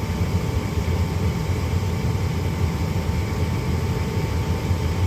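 Ducane 80% gas furnace's draft inducer motor running steadily during the igniter warm-up stage of the start-up sequence, before the gas valve opens.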